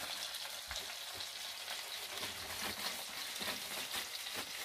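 Burger patties sizzling in a frying pan on an electric hotplate: a steady hiss with small scattered crackles of spitting fat.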